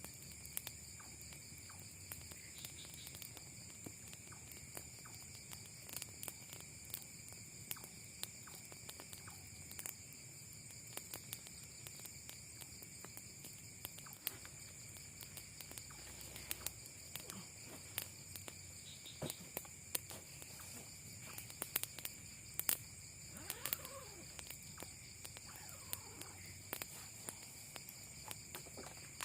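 Night insect chorus of crickets: a steady high-pitched trilling, with scattered small clicks and rustles over it.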